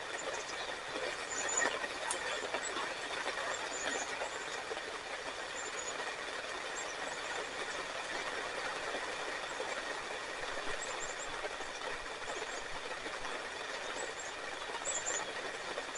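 Steady hiss of rain, with faint scattered crackles and pops from a small fatwood fire burning.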